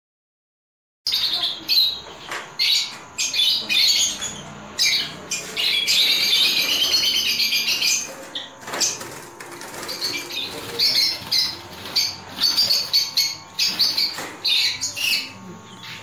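Peach-faced lovebirds, lutino among them, chattering and screeching in rapid high-pitched calls, starting about a second in, with wing flapping.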